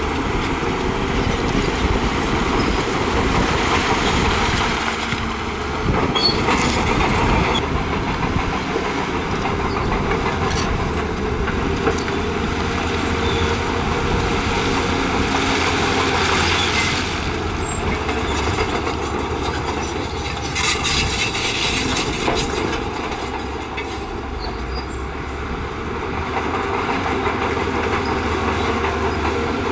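Shantui crawler bulldozer working: its diesel engine runs under load while the steel tracks clank and squeal and the blade scrapes through rock and soil, with louder stretches of clatter about a fifth of the way in and again past the middle.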